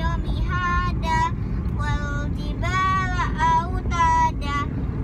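A young girl chanting Quran recitation in a melodic voice, with long held and gliding notes broken by short pauses. Beneath it runs the steady low rumble of the moving car's road noise in the cabin.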